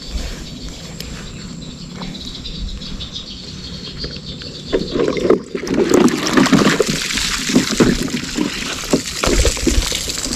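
A steady high insect buzz, then from about five seconds in, water splashing and sloshing as a plastic jerrycan is pulled out of the water, followed by irregular crunching steps and sloshing while it is carried across gravel.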